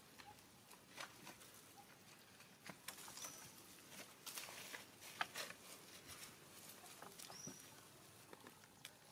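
Faint, scattered crackles and ticks of dry leaf litter as macaques shift on it, with two brief high chirps about four seconds apart.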